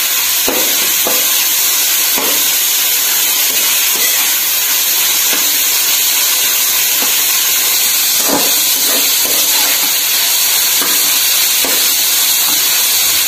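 Shredded vegetables (cabbage, carrot, capsicum, onion) sizzling steadily in hot oil in a metal kadai as they are stir-fried, with a spatula scraping and tossing them across the pan every second or so.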